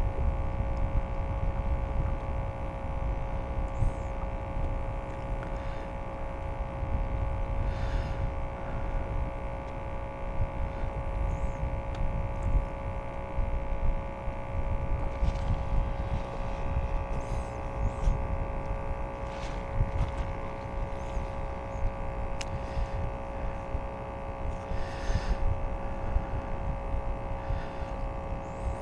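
Small electric trolling motor on a fishing kayak running at a steady speed, a constant whine of several steady tones. Under it is a low rumble of wind and water.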